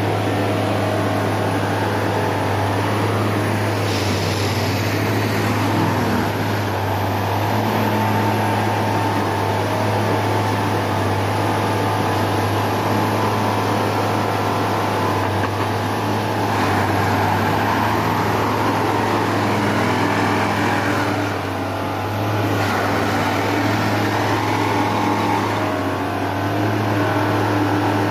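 Plasser & Theurer 09-3X track tamping machine running steadily: a constant low engine hum with a fainter higher whine above it.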